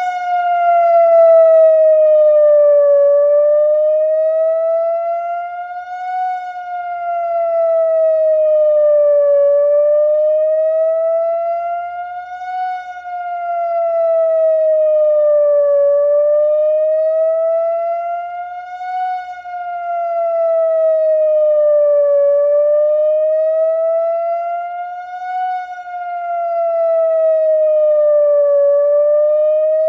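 ATI HPSS-16 electronic outdoor warning siren sounding a wail signal. A single steady electronic tone slowly rises and falls over a narrow pitch range, about once every six seconds. It swells louder at each high point and fades somewhat at each low point.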